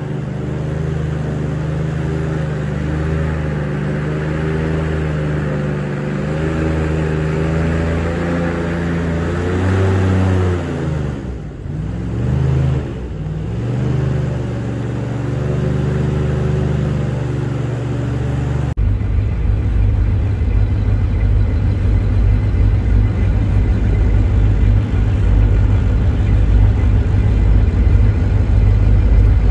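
A motor vehicle engine running steadily, its pitch dropping and then rising again about eleven to thirteen seconds in. About nineteen seconds in the sound cuts abruptly to a louder, deep rumble.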